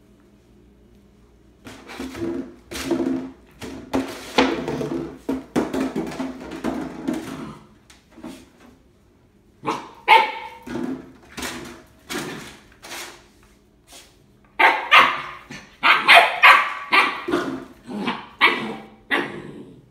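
A puppy barking and yapping in quick runs of short, high barks, in three bouts after a quiet start.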